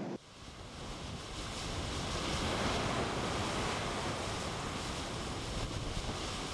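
Ocean surf and a steady rushing noise at a lava ocean entry, where a stream of lava pours from the sea cliff into the breaking waves and boils off steam. The noise swells over the first few seconds, then eases slightly.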